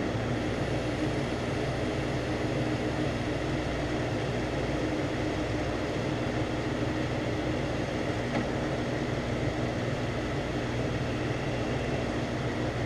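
Metal lathe running steadily, its motor and drive giving an even hum with a few constant low tones, while the tool takes a light finishing pass of about two thousandths along a Delrin bar.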